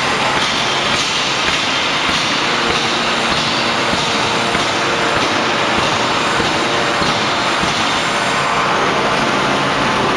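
Steady, loud din of forging-shop machinery: a constant noise with a faint hum running under it and no distinct press strokes or blows.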